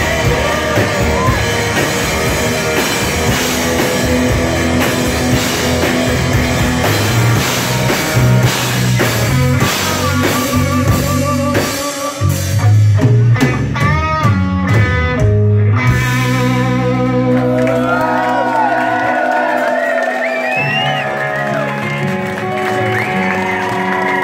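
Live rock band playing loud: electric guitars, bass and drum kit. After about twelve seconds the dense playing gives way to held, ringing chords under bending lead-guitar lines.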